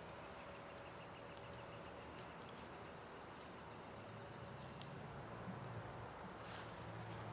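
Faint birdsong, with a quick high trill about five seconds in, over soft scattered clicks and scrapes of hand-weeding in garden soil.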